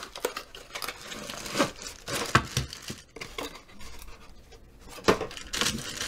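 Cardboard packaging and a plastic bag rustling and crinkling as they are handled and opened, with a few sharp knocks mixed in.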